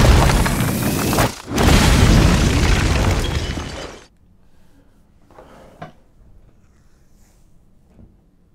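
Explosion in an animated show's soundtrack: a loud blast, a short drop just over a second in, then a second long blast that dies away about four seconds in, followed by quiet.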